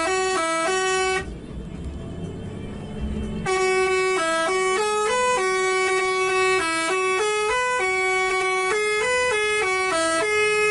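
Bus's Basuri telolet horn playing a tune of stepped notes: a short phrase that ends about a second in, then after a pause a longer melody of about seven seconds that cuts off suddenly.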